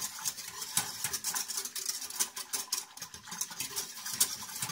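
Wire whisk stirring warm broth in a stainless steel pot, clicking and scraping against the metal in quick, uneven taps as the soaked gelatine is dissolved.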